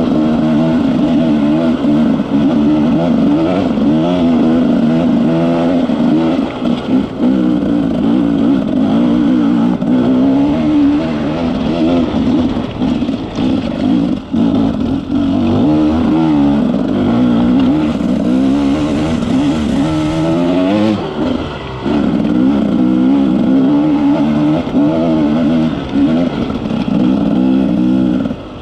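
Off-road motorcycle engine under a rider's constant throttle changes while climbing a rocky trail, the pitch rising and falling every second or so, with a few brief drops as the throttle is rolled off.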